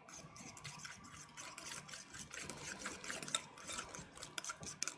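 A fork stirring and mashing grated Pecorino Romano and black pepper in a bowl into the sauce base: a faint, steady run of small scrapes and clicks of the fork against the bowl.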